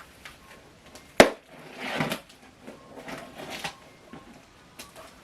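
Cardboard box and packaging being handled and opened by hand: one sharp knock about a second in, then rustling and scraping.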